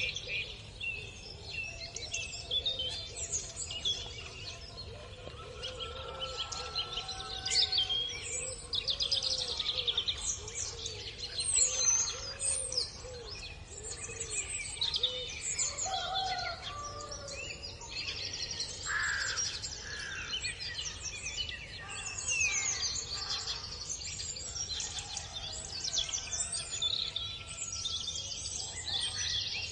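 Dawn chorus of many songbirds chirping and trilling, several at once and overlapping throughout, with a lower repeated call in the middle, over a steady low background rumble.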